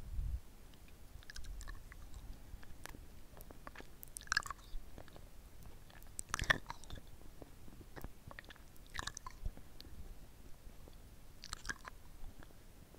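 Close-miked mouth sounds of a lollipop being licked and sucked: scattered wet smacks and clicks, with a louder one every few seconds.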